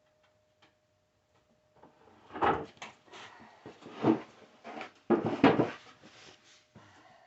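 Wooden drawer and drawer face being handled: a few knocks and scrapes of wood on wood. The loudest knocks come about two and a half seconds in, about four seconds in, and around five seconds in.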